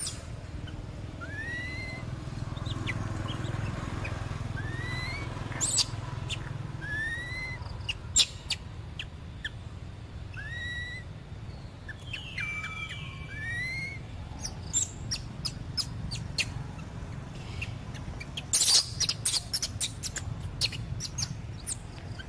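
Short upward-gliding whistled calls, repeated about every two seconds, with sharp clicks and chirps scattered between them and a cluster of high clicks near the end, over a steady low rumble.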